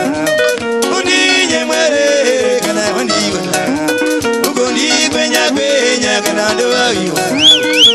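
Zimbabwean sungura band playing live: fast, interlocking picked electric-guitar lines over a steady beat, with no singing. Near the end a high tone slides up and down twice, the loudest moment.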